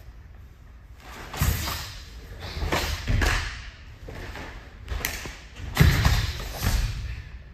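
Karate kata: about half a dozen sharp snaps and thuds at uneven intervals, the cotton gi snapping with each strike and bare feet landing on the mat.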